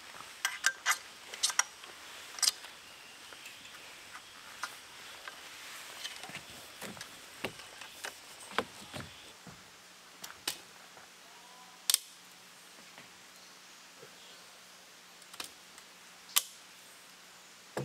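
Irregular sharp clicks and knocks of camping gear being handled. There is a quick cluster in the first second or so, then scattered single ones, with louder ones about twelve and sixteen seconds in. A faint low steady hum comes in about halfway.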